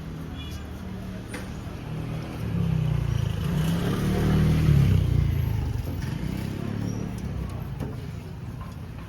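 A motor vehicle passing close by on the street, its engine sound swelling to a peak about halfway through and then fading away, over a steady background of street bustle.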